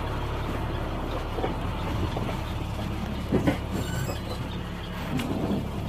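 Steady low rumble and road noise heard from inside a moving vehicle.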